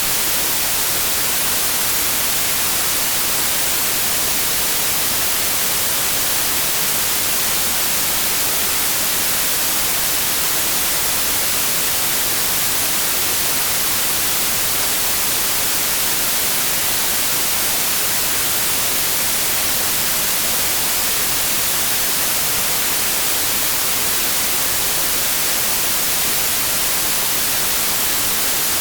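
Steady synthetic white noise: an even, unchanging hiss, brightest in the high frequencies.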